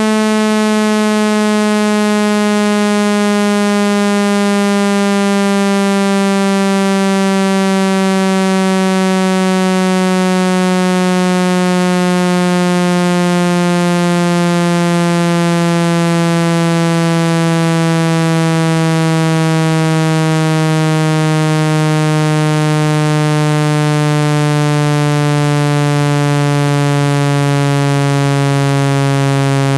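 Speaker water-ejection tone, a loud electronic tone sliding slowly and steadily lower in pitch. It is played at full volume so the speaker's vibration pushes trapped water and dust out through the phone's speaker grill.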